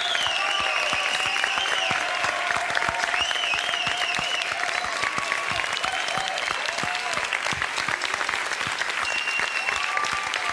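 Large studio audience applauding steadily, a standing ovation of many hands clapping, with some voices calling out over the clapping.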